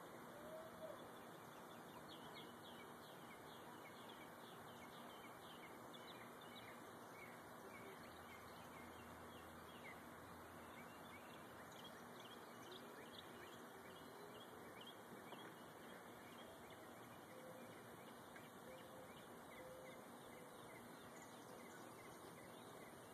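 Faint songbirds chirping over a steady low hiss: many short, quick high notes, busiest through the first two-thirds and thinning out toward the end.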